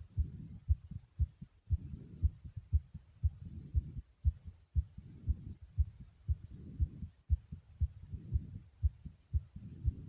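A person's heartbeat, racing after jumping jacks: low thumps about twice a second. Heavy breathing swells and fades under it every second or so.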